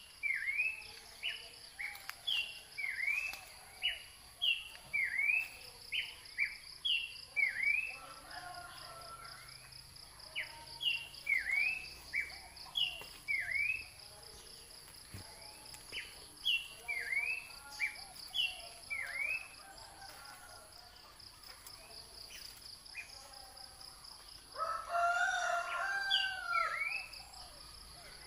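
Repeated short, high chirping calls, one or two a second, over a steady pulsing insect buzz. Near the end a rooster crows once, for about two seconds, louder than the rest.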